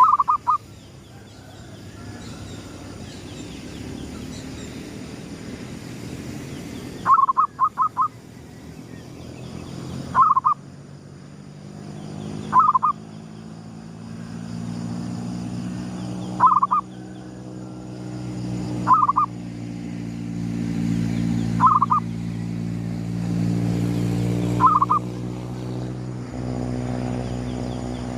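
Zebra dove (perkutut) cooing: short bursts of a few quick staccato notes, repeated every two to four seconds, with a quick triple burst about seven seconds in. A low steady drone builds up underneath from about twelve seconds in.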